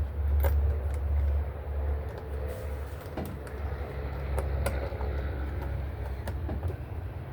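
Scattered light clicks and taps of hand tools and parts being fitted on the engine, over a steady low rumble.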